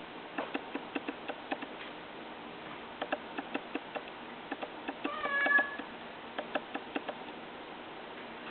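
A sphynx cat meows once, about five seconds in, lasting under a second, among a run of light, irregular clicks.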